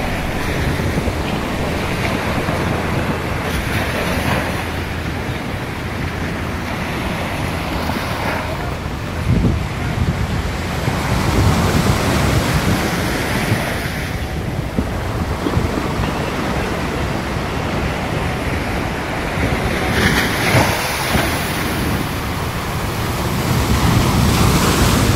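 Small sea waves breaking and washing up a sandy shore, a continuous wash that swells louder every few seconds as each wave comes in, with wind buffeting the microphone.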